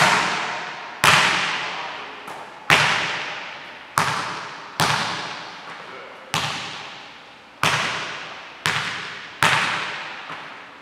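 Basketball bouncing hard on a hardwood gym floor, about one sharp hit a second at uneven spacing, each hit ringing out in a long echo off the gym walls.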